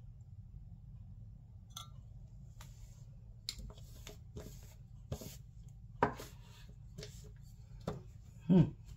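Scattered light knocks and clinks of painting tools and cups being handled and set down on a work table, over a steady low hum. The loudest comes near the end and slides down in pitch.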